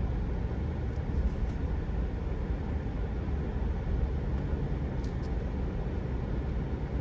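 Steady low rumble of a vehicle driving slowly: engine and road noise, with a couple of faint ticks.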